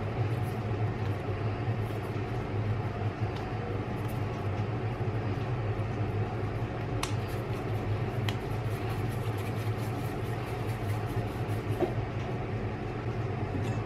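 Steady low mechanical hum of room background noise, with a couple of faint short clicks about halfway through.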